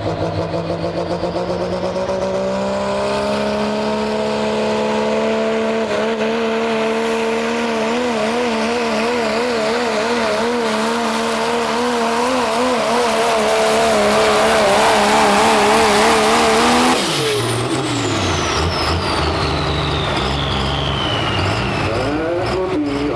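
Turbocharged diesel Dodge Ram pickup pulling a sled at full throttle: the engine note climbs over the first few seconds, then holds loud with a wobbling pitch. About seventeen seconds in the driver lets off at the end of the pull, and the engine drops away sharply while the turbo's high whine falls in pitch as it spools down.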